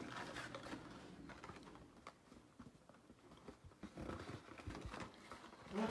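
Faint handling of a trading-card box and its packs: scattered light taps and clicks, with a few soft thumps about four seconds in.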